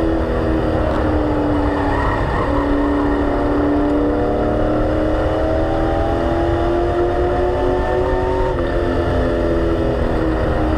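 Race car engine heard from inside the cockpit at speed, over a steady low road rumble. Its pitch climbs slowly along the straight, then drops about eight and a half seconds in as the car goes into the turn.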